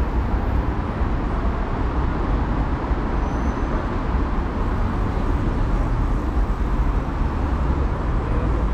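Steady city street traffic: a continuous rumble of passing motor vehicles on the road.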